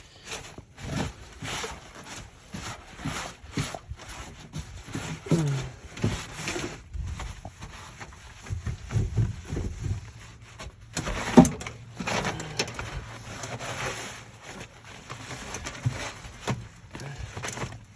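Scattered clicks, knocks and rustles of hands working in a stripped car interior, with a hissing burst of aerosol parts-cleaner spray about eleven seconds in.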